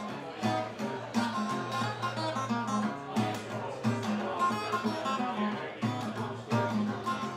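Acoustic guitar strummed in a steady, even rhythm, with low bass notes under the chords.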